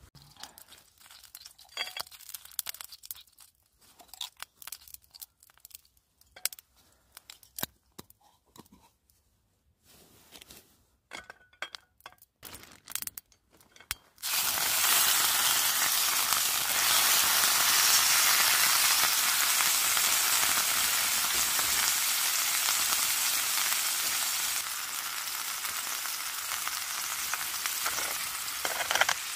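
Scattered small clicks and knocks, then, about halfway through, a sudden loud sizzle as sirloin steak goes into a hot pan of coconut oil on a Trangia spirit burner. The sizzle continues steadily and eases a little near the end.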